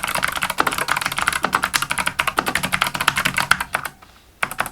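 Mechanical keyboard keys clattering under fast, continuous typing, many clicks a second, slackening about four seconds in, then a few last presses.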